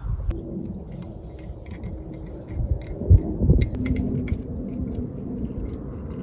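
Scattered light metallic clicks and taps from aluminium-finned CPU cooler heat sinks and a small screwdriver being handled, over a steady low rumble.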